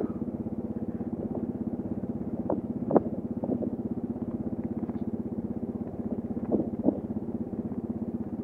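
Kawasaki KLR 650's single-cylinder engine running at a steady cruise, its firing pulses coming fast and even. A few brief knocks and rattles from the bike jolting on the dirt track cut through, the loudest about three seconds in.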